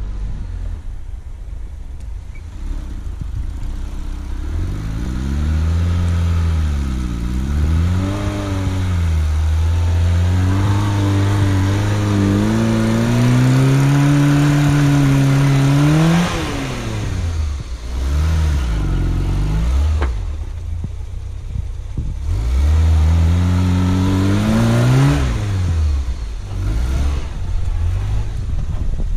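Suzuki SJ410's four-cylinder engine revving up and down under load as the jeep ploughs through deep snow. The revs climb steadily to a high peak about halfway through, drop away, then climb again and fall back near the end.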